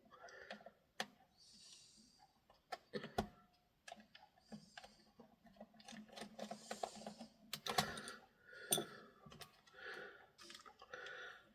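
Faint, irregular small clicks and light scrapes of a screwdriver and tiny crosshead screws being worked and handled on the plastic case of a Sony ICF-SW100 pocket shortwave radio.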